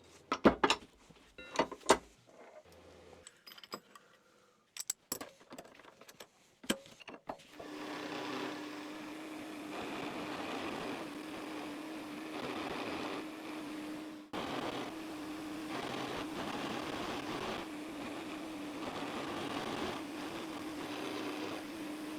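A few sharp metal clicks and knocks of the work being set up, then from about seven seconds a milling machine running steadily with a constant hum as it cuts a narrow slot into a brass screwdriver tip.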